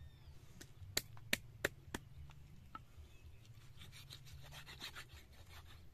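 Small hammer knocking sharply on wood four times in quick succession, about three knocks a second, as a guinea fowl carcass is split into pieces. Then comes a short spell of scraping and rubbing on the board.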